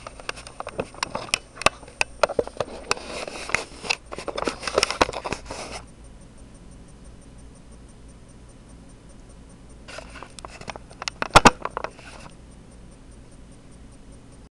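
Rapid clicks and scraping sounds for about six seconds, then a shorter second burst a few seconds later with a few sharp knocks.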